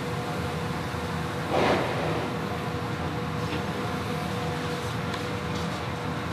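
Steady background hum and rush of a commercial kitchen's running equipment, with one brief, slightly louder sound about one and a half seconds in.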